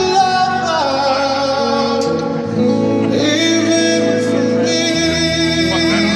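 Male voice singing long held notes that slide between pitches, over guitar accompaniment.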